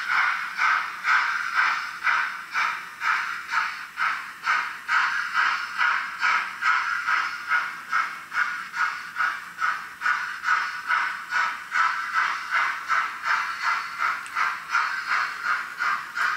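Model steam locomotive's sound decoder chuffing steadily at about two beats a second, a thin, small-speaker rendering of exhaust beats as the HO train runs at an even speed.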